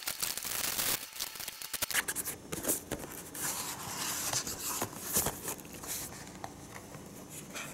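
Plastic shrink-wrap crinkling and cardboard tearing and rustling as a small product box is unwrapped and opened, with many sharp crackles and clicks; it grows quieter near the end.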